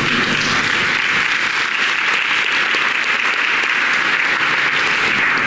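Congregation applauding, a dense steady clapping from many hands.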